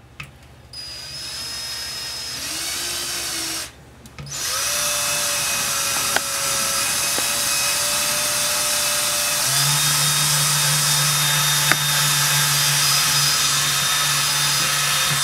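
Cordless drill with a small pilot bit boring a pilot hole into an accordion's body, running on a nearly flat battery. It runs briefly, stops for a moment about four seconds in, then starts again, rising in pitch and running steadily until the hole is through.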